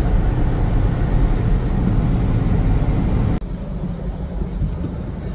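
Automatic car wash running, heard from inside the car: cloth brush strips scrubbing and slapping over the windscreen over a deep machinery rumble. About three and a half seconds in the sound drops abruptly to a quieter, lower rumble.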